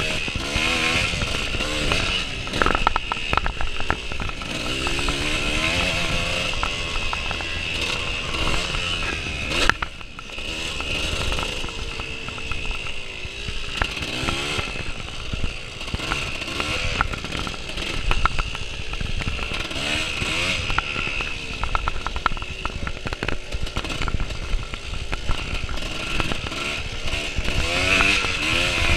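Off-road motorcycle engine heard from on the bike while riding a dirt trail, its pitch repeatedly rising and falling with throttle and gear changes. A sharp knock sounds just before ten seconds in.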